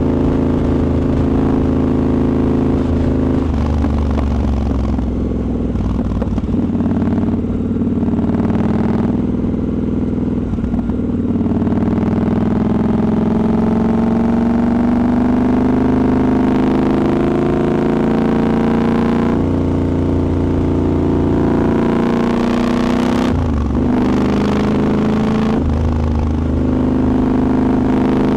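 Triumph Scrambler 1200 XE's 1200 cc parallel-twin engine running under way, revs rising and falling as the bike is ridden, with short dips in engine note twice near the end as gears are changed.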